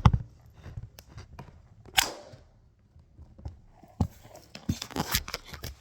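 Small toys being handled: scattered light knocks and clicks, a sharper knock at the start, and a brief rustle about two seconds in.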